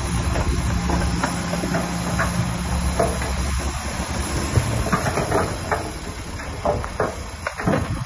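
Heavy diesel construction machine running, its steady engine hum fading out about three and a half seconds in, over a hiss and repeated sharp knocks and clatters that come more often in the second half.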